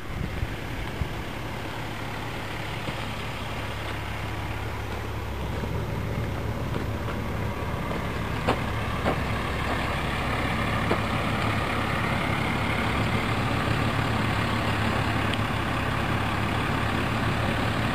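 Heavy diesel machinery engine running steadily with a low drone, growing slightly louder over the second half, with a few faint clicks near the middle.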